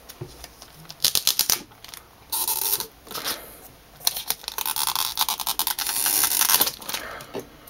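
Plastic wrapping crinkling and rustling as it is pulled off a new keyboard, with a quick run of sharp clicks about a second in.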